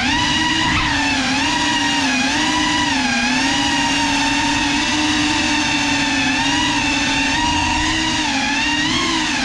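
A drone's motors and propellers whining steadily in flight, the pitch wavering up and down as the throttle changes.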